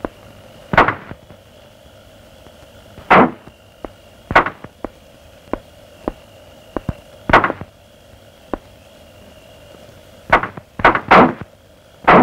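A scatter of sharp knocks and clicks at uneven spacing, the loudest with a brief ring, over a faint steady background.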